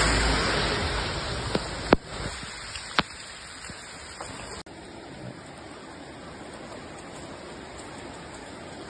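Steady rushing noise of heavy rain and muddy floodwater running down a street. It is loudest for the first two seconds, then drops to a quieter steady rush, with two sharp clicks around two and three seconds in.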